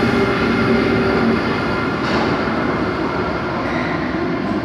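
Amtrak Keystone train hauled by ACS-64 electric locomotives passing close by on the station track: a steady rumble of the train running, with steady humming tones over it, easing off slightly as the rear locomotive goes by.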